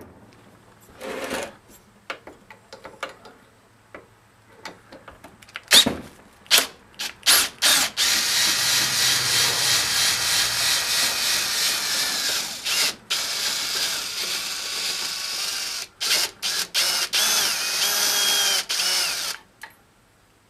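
Cordless drill spinning a socket on an extension to back out bolts from the compressor housing: a few short trigger blips, then three runs of a few seconds each, the motor's pitch wavering in the last one.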